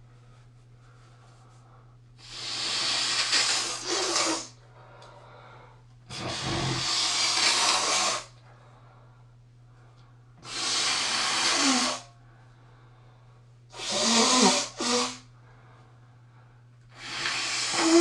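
A person blowing a congested nose into a tissue: five forceful blows of one to two seconds each, about every four seconds, the last two broken into shorter double blows.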